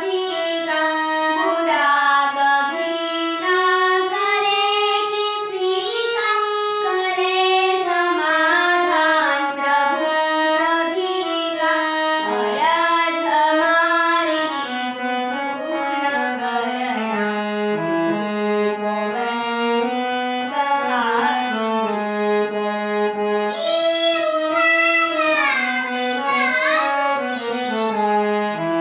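A young girl singing a devotional prayer song with instrumental accompaniment.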